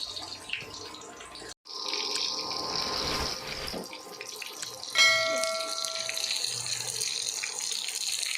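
Water running steadily, as from a tap, with a short gap about a second and a half in. About five seconds in, a single metallic clink rings out and fades over a second or so.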